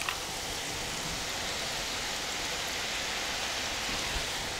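Besan sev strands deep-frying in hot oil in a kadhai: a steady sizzling hiss of bubbling oil.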